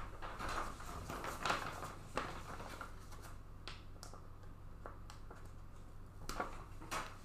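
Scattered light clicks and brief rustles from trading cards and their packaging being handled, over a low steady hum.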